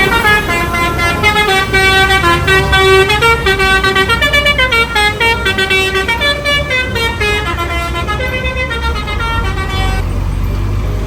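Basuri telolet horn on a bus playing a multi-note tune, its pitches stepping up and down, over the low rumble of the bus engine. The tune stops about ten seconds in, leaving the engine rumble.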